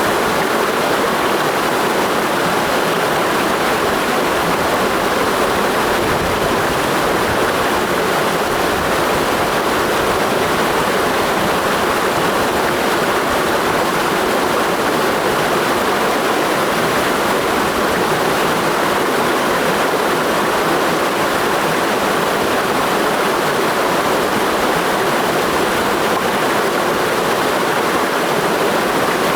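Mountain stream rushing steadily over rocks, a constant full water noise with no pauses.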